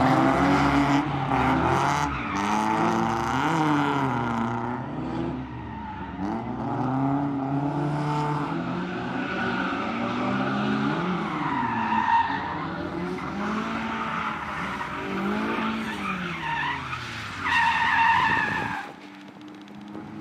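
Nissan 240SX drift cars' engines revving up and falling back in repeated sweeps through a slide, with tyre squeal and skidding, loudest about twelve seconds in and again near the end. The sound drops away sharply shortly before the end.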